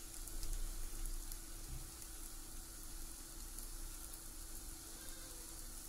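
Crêpe batter cooking in a nonstick frying pan, a faint steady sizzle, over a thin steady hum.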